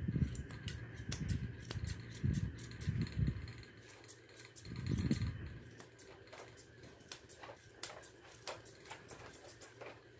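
Straight grooming shears snipping through a standard poodle puppy's thick coat, quick crisp snips at about three to four a second that stop just before the end. Low rustling bumps come now and then in the first half, the loudest about five seconds in.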